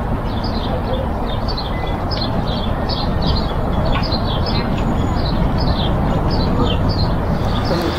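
Birds chirping over and over, short falling chirps about two or three a second, over a steady low rumble.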